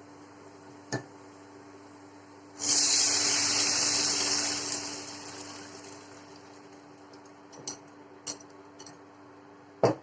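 Buttermilk and gram-flour mixture poured into a pan of hot ghee and roasted spices: a sudden loud sizzle about two and a half seconds in that dies away over the next few seconds. A few light utensil clicks before and after it.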